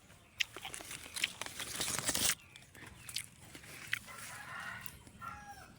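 Chickens clucking, with scattered clicks and a dense rustling, crunching noise about two seconds in.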